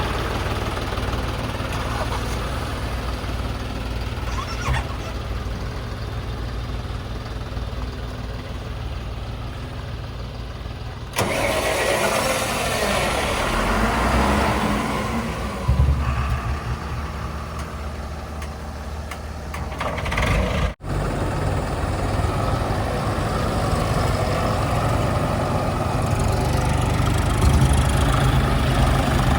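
Heavy diesel machinery engines running steadily, with the sound changing abruptly about a third and two-thirds of the way through.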